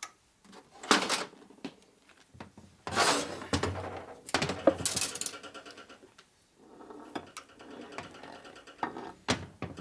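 Knucklehead engine crankcase and flywheel assembly being lifted and turned on a steel workbench: several metal clunks and scrapes, the loudest about five seconds in.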